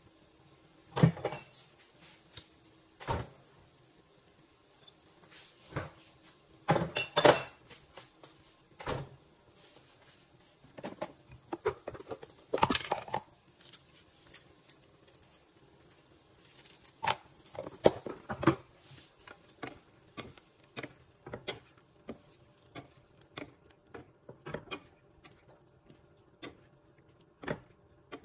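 Kitchen clatter: irregular knocks and clinks of utensils against pans and cookware, spaced out with quiet stretches between, the loudest around 7 and 18 seconds in and lighter ticks near the end.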